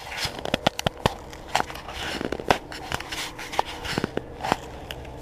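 Irregular clicks, knocks and rustling from gear and clothing handled and brushed close to a head-mounted camera, with no steady rhythm.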